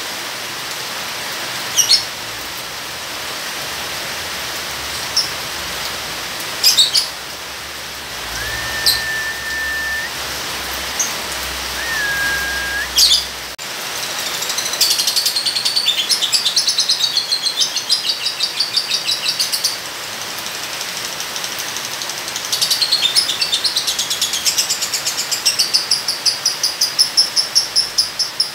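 Lovebird chattering in two long, fast runs of repeated high notes (the "ngekek" song), after a few single sharp chirps and two short, level whistled notes. Steady rain hiss runs underneath.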